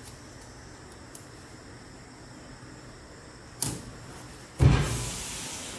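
Rubber liner mat being smoothed and pressed onto the steel floor of a tool chest's top box. It is mostly quiet handling, then a short scrape about three and a half seconds in and a louder rubbing swish about a second later that fades out.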